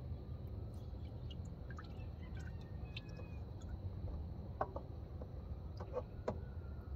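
A few small, sharp clicks and taps in the second half, from hands working the metal fluid lines and accumulator housing of a 4T65E-HD automatic transmission, over a steady low background rumble.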